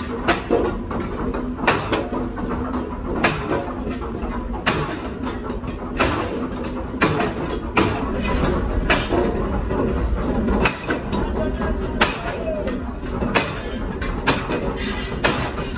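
Factory noise: a steady low machine rumble with sharp knocks at irregular intervals, roughly one a second, and faint voices in the background.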